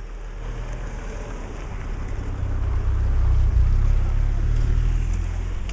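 Wind buffeting the microphone in an uneven low rumble that swells toward the middle, over the steady rush of a flood-swollen creek.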